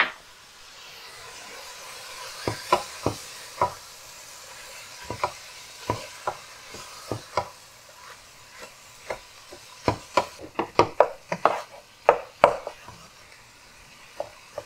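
Wooden slotted spatula stirring ground beef and onions in a frying pan over a soft sizzle. Its edge knocks and scrapes on the pan, a few times at first and then in quick runs through the second half.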